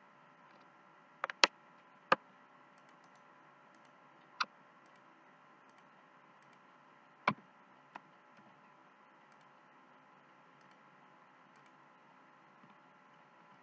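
Computer mouse clicking a handful of times at irregular intervals, with a quick double click just over a second in. A faint steady hum runs underneath.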